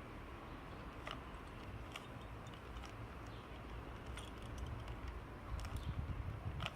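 Plastic Rubik's cube being turned by hand: scattered sharp clicks as its layers are twisted, over a low steady rumble.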